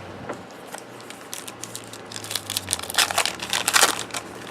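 A trading card pack's wrapper crinkling and tearing as it is opened. The crackling grows louder and denser from about halfway in.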